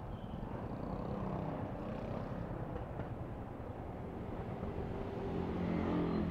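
Yamaha Sniper 155 motorcycle's single-cylinder engine running at low speed under a steady low rumble of wind on the microphone, getting louder about five seconds in.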